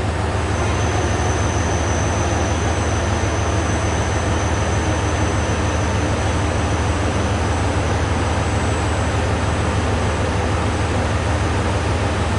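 Echigo TOKImeki Railway ET122 diesel railcar idling while standing, a steady low engine hum. A thin high-pitched tone sounds over it for most of the time, fading out near the end.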